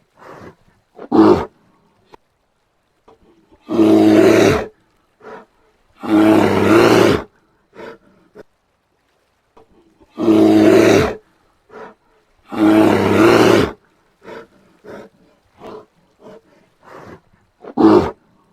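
Brown bear roaring: four loud roars of about a second each, coming in two pairs, with two shorter calls and many soft short huffs and grunts in between.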